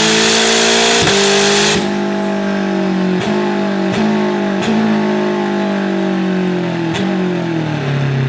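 E36 M3 race car's engine on a chassis dyno at full throttle, lifting off about two seconds in. The revs then wind down slowly as the rollers coast, with about half a dozen sharp exhaust pops and cracks on the overrun.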